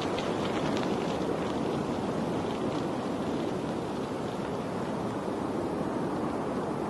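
Steady rushing of flowing water, with faint light ticks or spatters in the first second.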